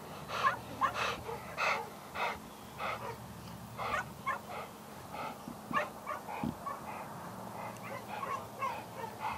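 English Pointer dog panting, quick breaths about twice a second that grow fainter and less regular after about four seconds.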